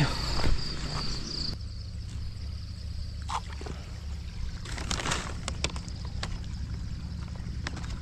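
Outdoor ambience: insects chirping until about a second and a half in, then a steady low rumble with a few scattered light clicks and knocks and a brief rushing noise around the middle.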